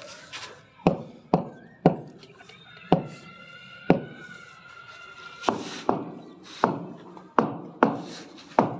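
Butt of a wooden tool handle knocking on a polished granite slab, tapping it down into its cement mortar bed. About eleven sharp knocks at irregular intervals.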